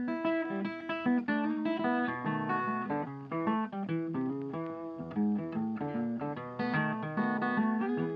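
Background music: a tune of plucked guitar notes, played continuously.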